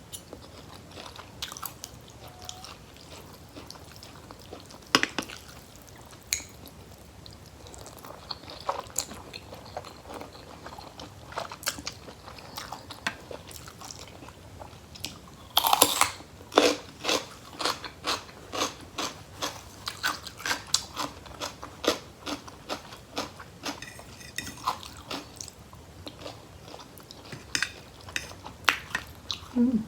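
A person chewing and crunching food close to the microphone: irregular crisp crunches, with a louder, denser run of bites starting about halfway through.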